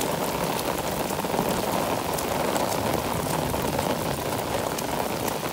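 Heavy rain falling, a steady dense hiss with many individual drop hits through it.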